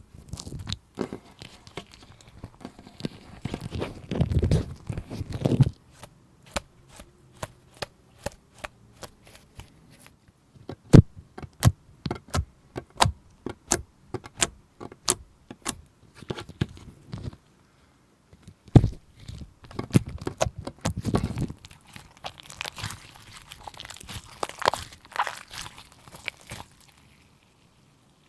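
Slime being worked by hand, squished and pressed, with runs of sharp little clicks and pops and stretches of wet crackling.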